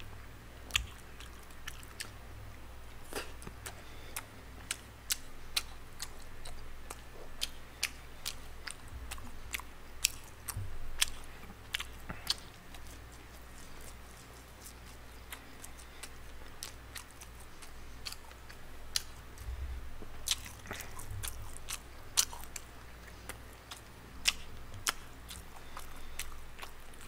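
Close-miked chewing of spicy tteokbokki and fried snacks, with frequent irregular sharp clicks and smacks.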